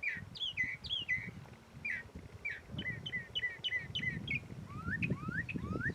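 Songbirds singing: repeated short down-slurred chirps, a quick run of them about three seconds in, then a series of rising whistled notes near the end, over a low rumble.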